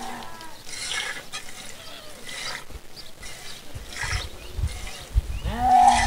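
Short hissing squirts of milk hitting a metal pail as a cow is milked by hand, coming every second or so. A farm animal calls twice, once at the start and again near the end, each call about a second long, rising in pitch and then held.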